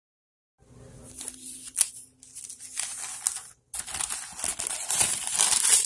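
Rustling and crinkling right at the microphone with a few sharp clicks: handling noise. It starts about half a second in, breaks off briefly past the middle, and is loudest near the end.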